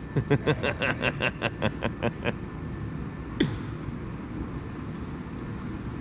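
A man laughing: a quick run of about a dozen laughs that fades out over a couple of seconds. About a second later comes one short vocal sound falling in pitch, over a steady low background hum.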